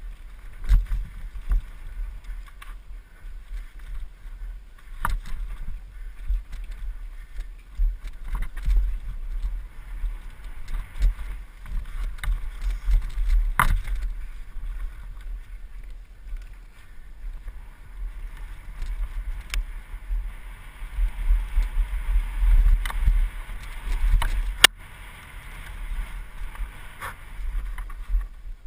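Mountain bike rolling fast down a rough dirt trail, picked up by a helmet-mounted camera: a constant buffeting rumble of wind on the microphone, the bike rattling over stones and roots, and scattered sharp clicks and knocks from the bike. It eases off a little after a loud knock near the end.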